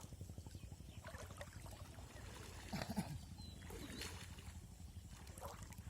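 Faint outdoor ambience: a steady low rumble with a few brief high chirps, and a short low call about three seconds in.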